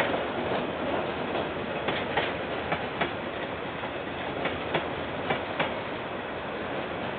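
KiwiRail train passing, its wagons rolling by with a steady rumble and the wheels clacking over the rail joints in pairs, heard through a security camera's microphone.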